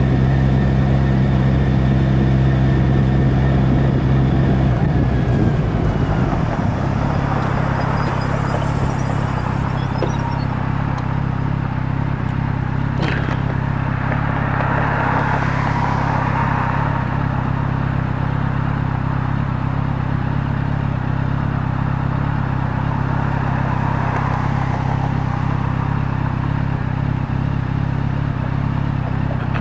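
Motorcycle engine running as the bike rolls along, then easing off about six seconds in and idling steadily while stopped, with a single click about halfway.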